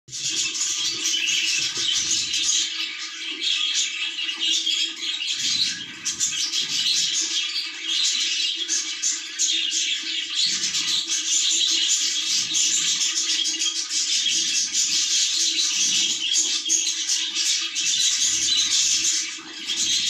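Budgerigars chirping and chattering continuously in a dense, high-pitched stream, with a steady low hum underneath.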